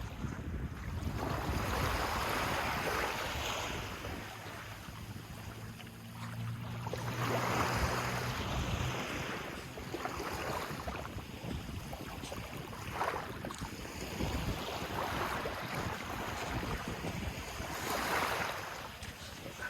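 Sea waves washing in, swelling and falling back every few seconds, with wind buffeting the microphone.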